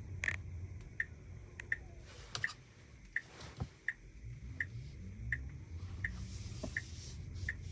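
Tesla Model Y's turn-signal indicator ticking steadily, about one tick every 0.7 s, signalling the car's right turn. Low road rumble inside the cabin underneath.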